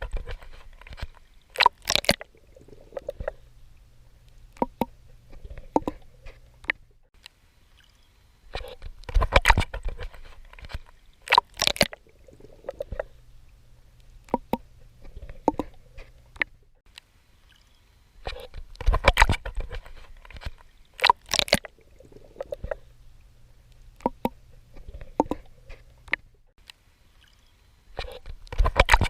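A swimmer's strokes splashing and sloshing through water, in clusters of sharp splashes that come back about every nine to ten seconds, with softer water movement between them.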